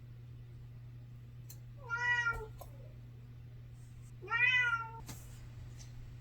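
A cat meowing twice, two arching calls a couple of seconds apart, over a steady low hum, with a few faint clicks.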